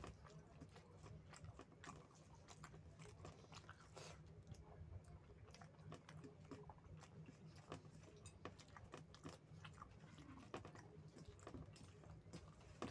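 Close-up mouth sounds of someone chewing big mouthfuls of rice and chicken curry: soft wet chewing with frequent small clicks and smacks throughout.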